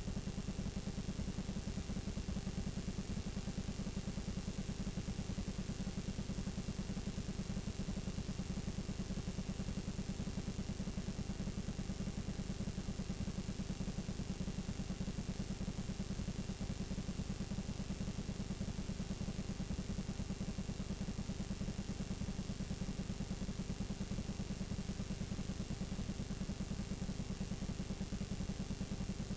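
Steady low electrical buzz with a hiss over it from a blank, unrecorded stretch of videotape, with no program sound.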